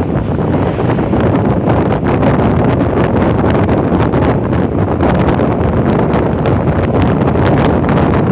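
Wind rushing and buffeting over the microphone of a camera in a moving vehicle, with steady road noise beneath and short crackles throughout.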